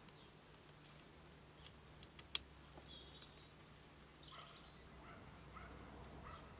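Faint scattered taps and clicks, the sharpest a little over two seconds in, from a great spotted woodpecker pecking at rotten wood on a tree stump. In the second half a bird gives a run of short repeated notes, about two a second.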